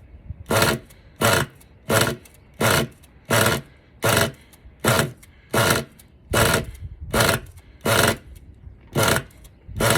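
Small nitro RC engine being pull-started over and over, about thirteen quick yanks of the recoil starter in a steady rhythm, each a short whirring burst, without the engine firing.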